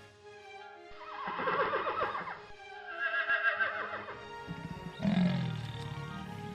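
A horse whinnying twice, each call a quavering neigh that falls in pitch, over steady background music; about five seconds in a deep, low roar begins.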